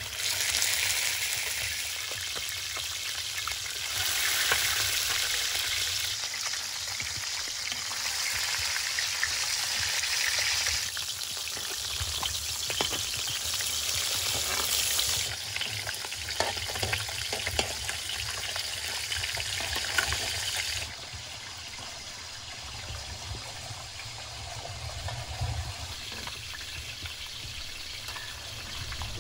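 Beef brain pieces deep-frying in hot oil in a large metal pan: a steady sizzle and crackle, its level stepping up and down a few times, with a few light clicks.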